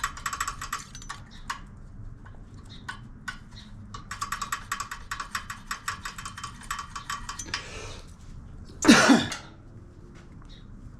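Rapid, evenly spaced clicking of a ratchet wrench being worked on the engine, once briefly at the start and then for about three and a half seconds, followed by a short cough about nine seconds in.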